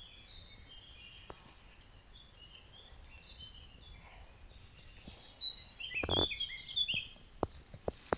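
Woodland birds singing, many short high chirps and trills. About six seconds in there is a brief rustle, and near the end a few crackles of dry fallen leaves underfoot.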